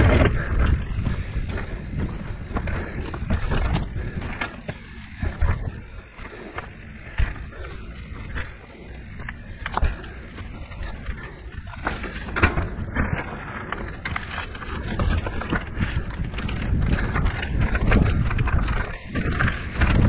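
Mountain bike rolling over a rocky dirt trail: tyres crunching on dirt and stone, with many sharp knocks and rattles from the bike over the rocks and a low rumble underneath.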